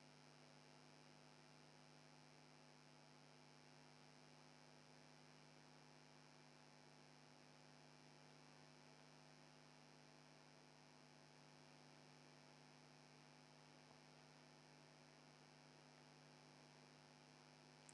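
Near silence: a faint, steady hum.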